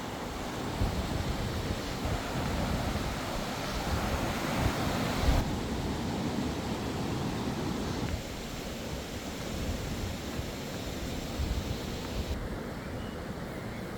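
Wind buffeting the microphone: a steady rushing noise with irregular low thumps from gusts, strongest around five seconds in and easing after about eight seconds.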